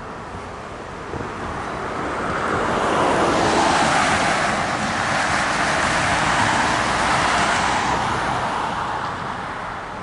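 VIA Rail passenger train led by F40 diesel locomotive 6411 passing at speed: a steady rush of wheels on rail and air that swells to a peak a few seconds in and then fades away.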